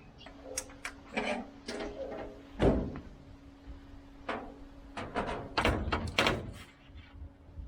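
A run of irregular knocks and clunks from handling a solar panel and its mounting brackets on a vehicle, with the loudest thump about two and a half seconds in. A faint steady hum sits underneath.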